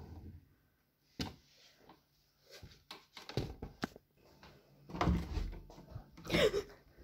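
Interior wooden door being worked open: a series of sharp clicks from its metal lever handle and latch, with two louder knocks and scrapes near the end as the door moves.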